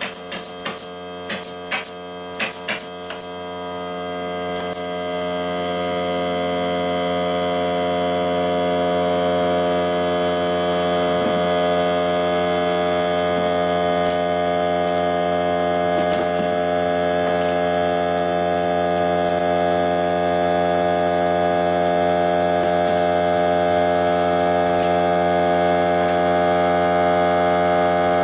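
Pneumatic air nailer firing rapidly, about three shots a second, for the first three seconds, over a Greenworks 40 V cordless air compressor running. The compressor keeps running on its own with a steady hum, growing louder over the first few seconds and then holding level.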